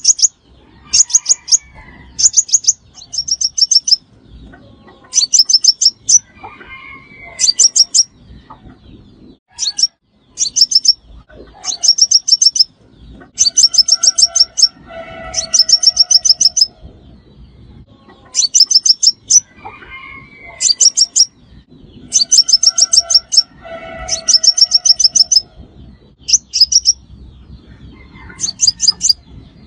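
Sunbird call used as a trapping lure: bursts of very fast, high trills repeated every second or two, some short and some drawn out, with softer lower chirps under a few of them.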